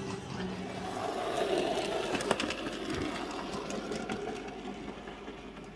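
Model train running on layout track: a motor whir and wheel rumble, with a quick run of clicks about two seconds in as the wheels pass over rail joints, fading toward the end.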